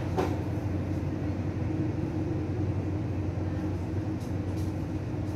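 Steady low mechanical hum with a constant drone, and a short click just after the start.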